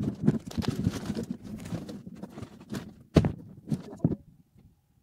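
Guinea pig chewing and tearing at an ear of corn in its husk close to the microphone: irregular crunching and crackling of husk and kernels, with a few louder knocks, thinning out about four seconds in.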